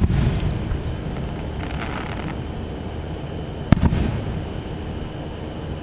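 Aerial fireworks shells bursting: the rumble of a burst dying away, then one sharp bang a little under four seconds in, with a rolling echo after it.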